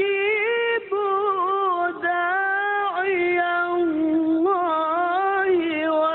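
Male qari reciting the Quran in tilawah style, holding long, high, ornamented melismatic notes in maqam Bayyati, with a couple of brief breaks between phrases.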